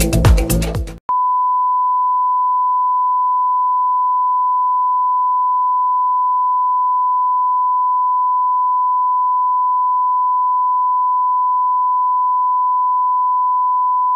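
Electronic intro music stops about a second in, and a steady, pure test tone, the reference beep that goes with TV colour bars, takes over at an unchanging level.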